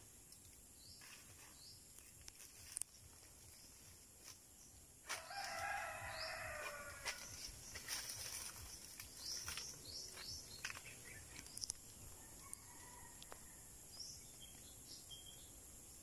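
A rooster crowing once, about five seconds in, for about two seconds. Short, high bird chirps come here and there.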